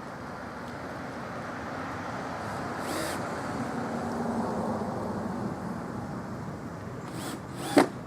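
A vehicle passing by: a steady rushing that swells to its loudest about halfway through and then eases off. A short, sharp sound near the end is the loudest moment.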